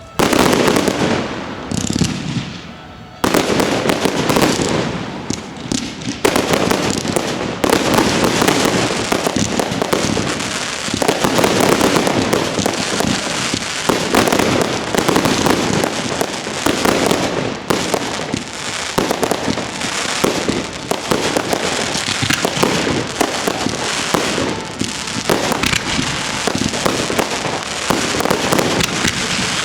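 Fireworks display: a dense, continuous barrage of rapid bangs and crackling, with a sudden loud burst at the start and another about three seconds in.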